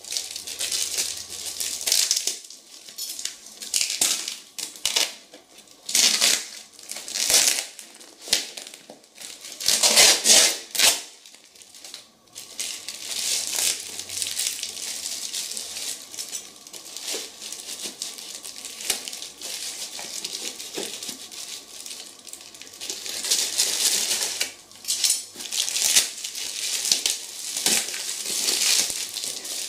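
Plastic parcel wrapping and a black plastic bag being torn and crumpled by hand: irregular crinkling and ripping that comes and goes, loudest about ten seconds in.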